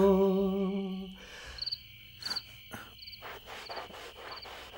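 A man's held sung note fades out about a second in, leaving crickets chirping quietly: a short chirp about every half second.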